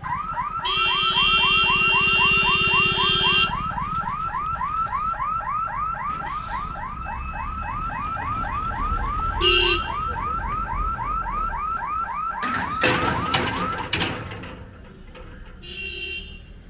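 Level-crossing gate warning siren sounding as the boom barrier lowers: a rapid repeating sweeping tone, about four a second, that stops about fourteen seconds in. A vehicle horn honks over it for about three seconds near the start and briefly twice more, and a louder noisy rush comes just before the siren stops.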